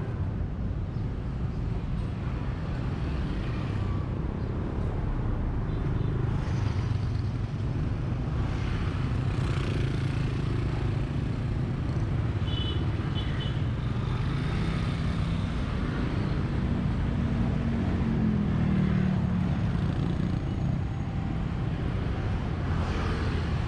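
Steady street traffic: the running engines of passing motorbikes and cars, with a short high beeping about halfway through.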